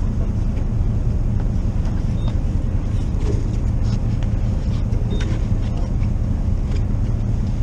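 Steady low rumble of an idling engine, with a few faint clicks.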